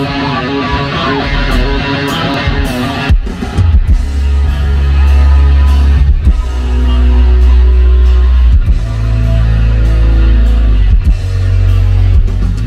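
Live rock band playing loud through a PA: electric guitars, bass guitar and drum kit. The band drops out briefly about three seconds in, then comes back with heavy, sustained low bass under held guitar notes.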